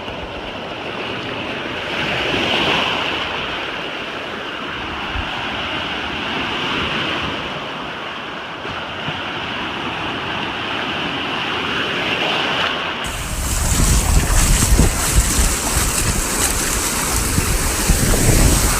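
Ocean surf washing on a beach, a steady hiss. About two-thirds of the way through it changes abruptly to heavy wind buffeting the microphone, gusty and rumbling over the surf.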